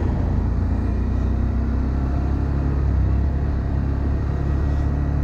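Honda Monkey 125's air-cooled single-cylinder engine running steadily as the bike is ridden, with rushing wind and road noise.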